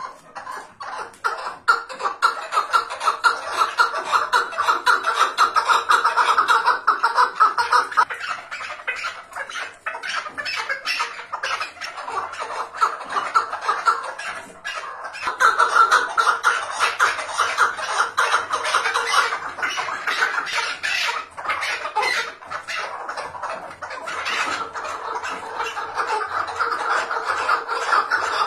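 Chukar partridge calling: long runs of rapid chuckling notes that ease off about eight seconds in and again around fourteen seconds, then build up once more.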